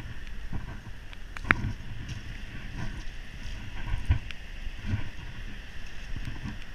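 Boots walking over wet beach cobbles and pebbles, a dull thud with each step, over a steady rush of wind. A sharp clack of stone about a second and a half in.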